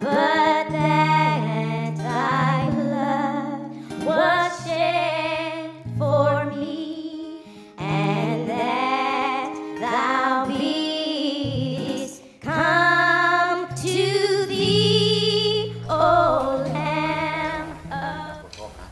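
Music: a song with a singing voice on wavering, held notes over steady bass notes, dying away near the end.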